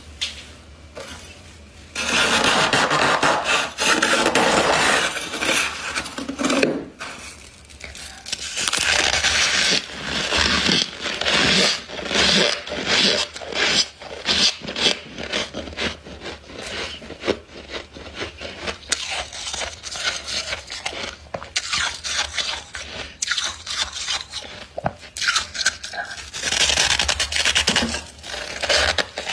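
Thick freezer frost being scraped and crunched: gritty scrapes and crackly crunches in irregular bursts, starting about two seconds in.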